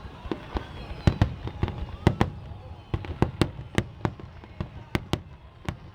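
Aerial fireworks shells bursting in a rapid, irregular string of sharp bangs, several close together at times, over a steady low rumble.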